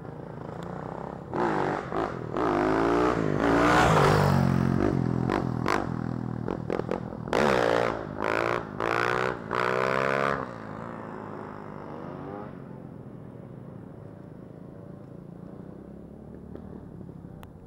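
Small off-road vehicle engine accelerating hard, its pitch climbing, dropping back and climbing again through several gear changes, then fading away after about ten seconds.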